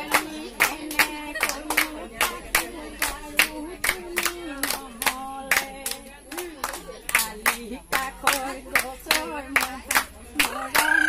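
Biya naam, Assamese wedding songs, sung by women's voices to steady rhythmic hand clapping, about three claps a second.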